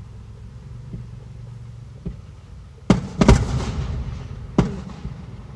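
Fireworks shells bursting: two faint thumps, then three loud bangs starting about three seconds in, the second loudest and trailing off in a rumble.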